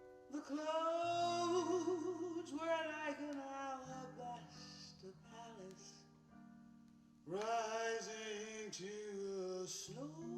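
A song played back through a small, cheap 350-yen speaker: a sung vocal with wavering held notes over plucked guitar. The voice sings one phrase at the start and another about seven seconds in, with guitar alone in between.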